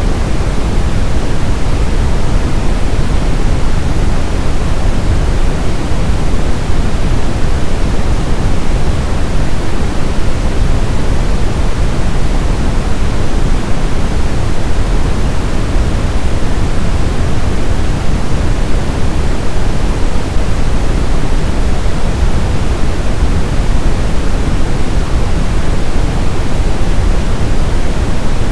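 Synthetic brown noise: a steady, loud hiss weighted toward the low end, with no change or events.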